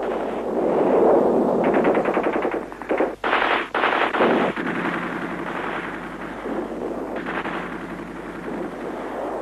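Machine-gun fire mixed with other gunfire: a steady, dense rattle of rapid shots with a couple of brief breaks about three seconds in.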